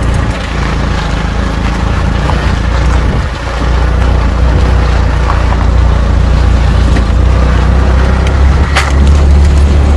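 A car driving slowly over a rough, bumpy unpaved road, likely in low gear, with a loud low rumble and scattered knocks and rattles.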